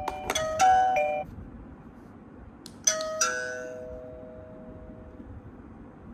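Smart doorbell's electronic ding-dong chime ringing as its button is pressed: a click and a short chime just after the start, then a full two-note ding-dong about three seconds in that rings out for about two seconds.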